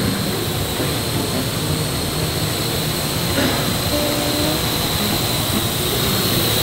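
Small quadcopter drone flying close by, its rotors buzzing steadily with a constant high-pitched whine.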